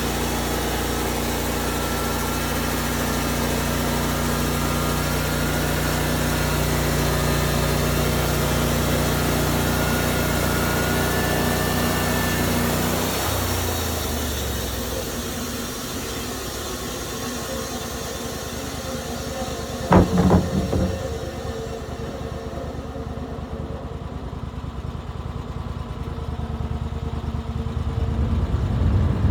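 Sawmill engine running at a steady speed, then slowing and dropping away about 13 seconds in, leaving a quieter hiss. A single sharp metallic clank comes about 20 seconds in.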